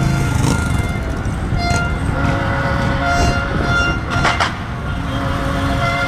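Car horns blaring in celebration over the rumble of slow-moving parade traffic: several long, overlapping horn blasts at different pitches.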